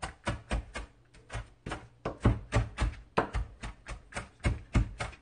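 Kitchen knife mincing scallions on a plastic cutting board: a quick, uneven run of chopping knocks, about four to five a second.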